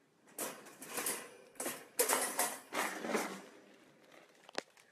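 Hollow plastic ball-pit balls clattering and rolling on a wooden floor as a dog moves among them, in several bursts over about three seconds, with a single sharp click near the end.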